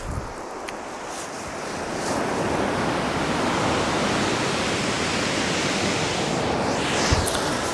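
Surf breaking and washing on a shingle beach: a steady rush of water that swells about two seconds in, with a single knock near the end.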